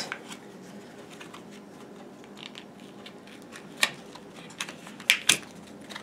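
Small plastic popper toys and cardboard packaging being handled: scattered light clicks and rustles, with a few sharper clicks in the second half.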